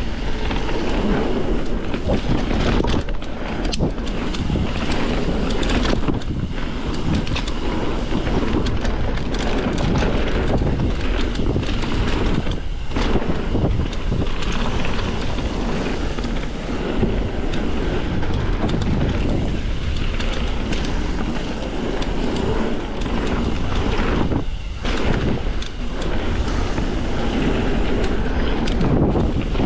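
Wind rushing over the camera microphone and mountain bike tyres rolling over a dirt trail during a fast descent, a steady loud rush that drops off briefly a few times.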